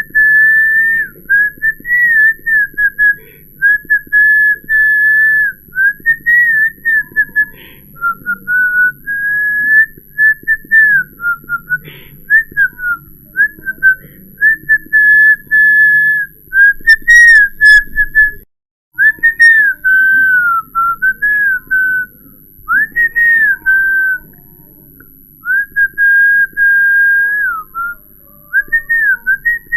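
A person whistling a wandering string of short notes, each a single pure tone sliding up and down. The sound drops out briefly a little past halfway, then the whistling resumes.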